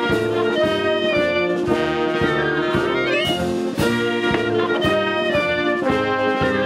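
Military wind band of brass and woodwinds (trumpets, horns, clarinets) playing a piece with a steady beat.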